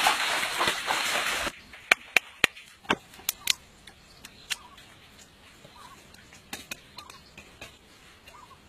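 Water splashing loudly as people throw water by hand, cutting off suddenly about a second and a half in. A few sharp knocks follow, then faint ticks of handling.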